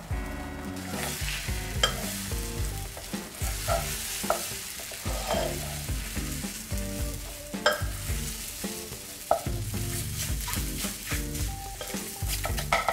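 Eggs sizzling on the nonstick plate of an Elite Cuisine EGL-6101 personal electric skillet while black plastic tongs fold, stir and scrape them around, with scattered clicks of the utensil against the pan. Background music plays underneath.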